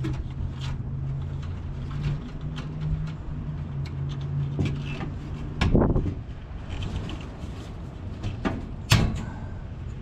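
Hand work on a rooftop HVAC unit: scattered clicks and two sharp metal knocks from tools and parts being handled, over a steady low hum that stops a little past halfway.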